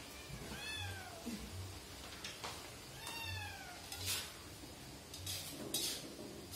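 A cat meowing twice, each call rising and falling in pitch, with a few metal clinks and scrapes of a spatula against a steel wok.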